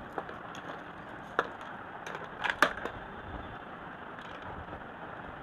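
A few light, sharp clicks and taps from small objects being handled, one near the start, one about a second and a half in, and a short cluster a little later, over a steady low hiss.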